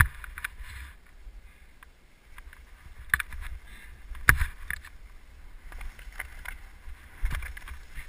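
Skis scraping and chattering over thin, lumpy, crusty snow lying on grass and dirt, in uneven bursts over a low rumble. Several sharp knocks ring out, the loudest about four seconds in and another near the end.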